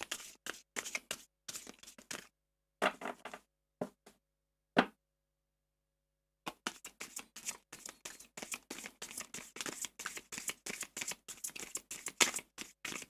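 Tarot cards shuffled by hand, a run of quick, dry card clicks and flicks. It is sparse at first, breaks off for about a second and a half in the middle, then comes back as a fast, steady patter.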